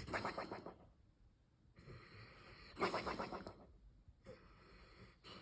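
Weimaraner snoring in its sleep while dreaming: whistling snores, about four breaths, the loudest with a rapid flutter, one near the start and one about three seconds in.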